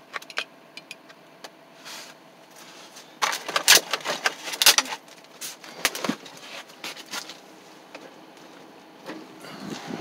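Irregular clicks and rattles of hands working the worn dashboard controls and interior trim of an old car, with a loud burst of clattering knocks about three to five seconds in.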